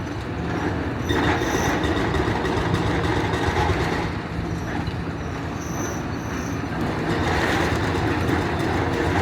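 Demolition excavator working: its diesel engine runs steadily while it scrapes through rubble, with a few short, high metallic squeals.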